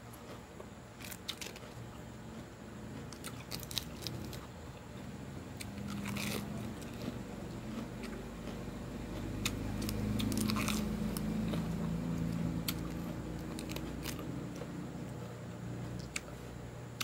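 Raw lettuce leaves being bitten and chewed close to the microphone: irregular crisp crunches and wet chewing. A low hum swells in the background around the middle and fades again.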